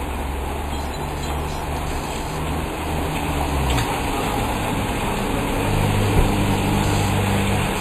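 Cars driving past on a rain-soaked street: a low engine hum and tyre swish on wet asphalt over the steady hiss of falling rain. One car passes in the first half and another from a little past the middle.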